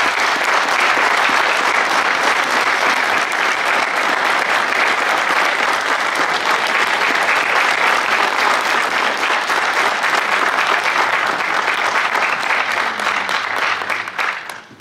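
Audience applauding steadily, a dense patter of many hands clapping that thins out and fades near the end.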